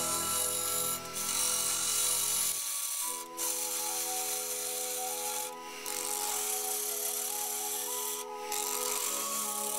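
A turning gouge cutting a spinning segmented ash vase on a wood lathe: a steady scraping hiss of peeling shavings, broken by brief pauses about every two to three seconds. Background music with sustained chords plays underneath, changing chord twice.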